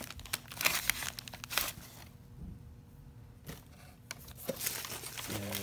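Crinkling and rustling of parts packaging being handled, in irregular crackly bursts with a quieter pause in the middle.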